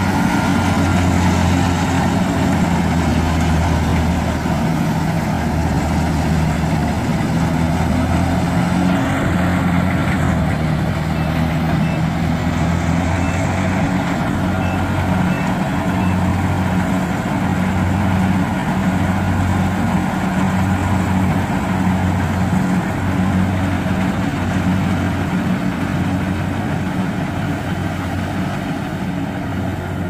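Kubota DC-70G Plus combine harvester running steadily under load as it cuts rice: a diesel engine hum over the noise of its cutting and threshing works. Past the middle, the low engine note swells and dips about every two seconds.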